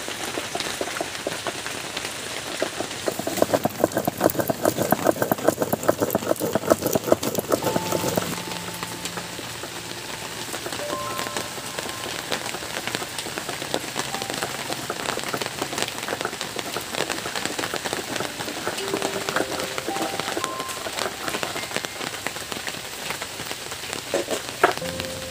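Heavy monsoon rain falling steadily, with many individual drops striking close by; it comes down harder for a few seconds about three seconds in.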